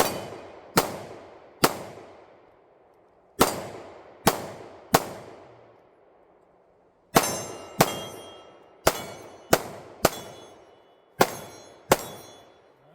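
About a dozen pistol shots fired outdoors in quick strings of two or three, each followed by a fading echo. On the later shots, steel targets ring with a high metallic tone.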